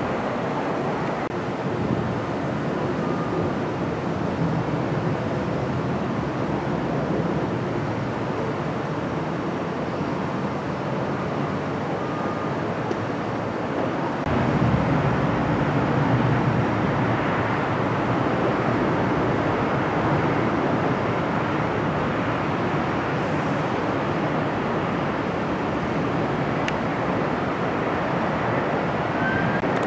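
Jet airliner engines heard from afar, a steady rushing noise with no distinct events. It gets a few decibels louder about halfway through, at a cut, and stays steady after.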